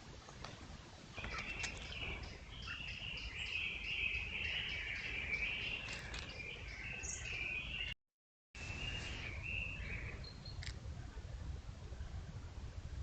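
Bird calls in a quick continuous run for several seconds, starting about a second in, over a steady low rumble of wind or outdoor noise. The sound drops out completely for half a second about two-thirds through, then a few shorter calls follow.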